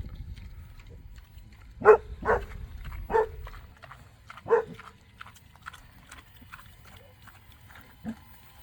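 Dog barking four short barks in under three seconds, with a faint fifth call near the end.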